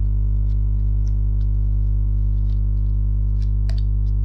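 A steady low-pitched drone that does not change, with a few faint clicks scattered through it.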